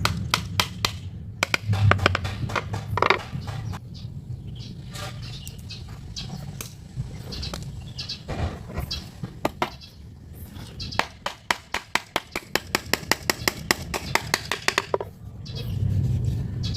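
A series of sharp knocks and clicks at irregular spacing. In the second half comes a quick regular run of about four or five taps a second.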